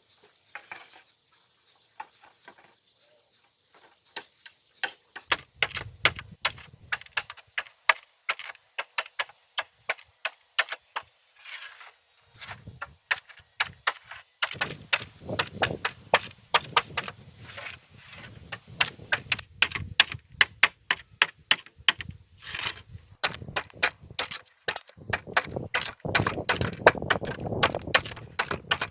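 Hand work on timber and bamboo: sharp, irregular knocks and clacks of wood on wood. They are sparse for the first few seconds, then come several a second with heavier thuds beneath them.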